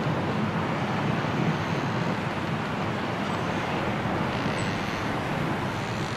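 Strong storm wind blowing steadily through the trees, a continuous even rush with no distinct pitch.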